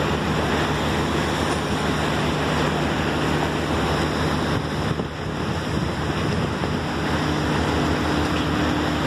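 Boat engine running steadily under the rush of water along the hull, with wind buffeting the microphone; a higher steady tone joins the engine hum about seven seconds in.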